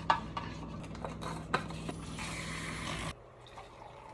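Liquid poured into a cup of ice, with ice cubes clicking and clinking, the pour filling in strongest just before it cuts off about three seconds in. A low steady hum underneath stops at the same moment.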